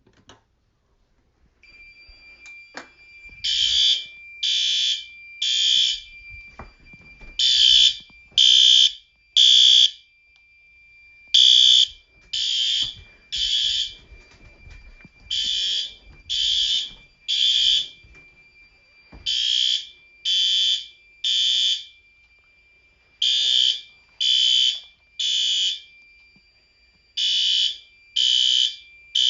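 System Sensor P4RL horn strobe sounding in the temporal-3 evacuation pattern: three short honks, then a pause, repeating every four seconds, with the system in alarm from a smoke detector test. A faint steady high tone runs underneath from about two seconds in.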